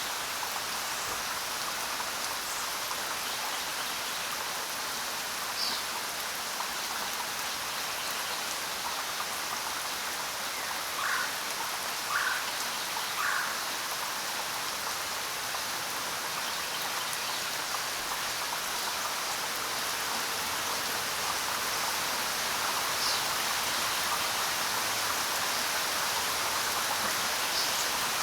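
Steady rain falling on the ground, an even hiss of drops, with a few brief faint chirps from some small animal sounding through it, three in quick succession about halfway in.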